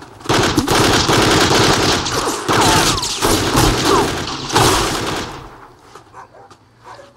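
A rapid volley of gunfire, many shots close together, lasting about five seconds before dying away.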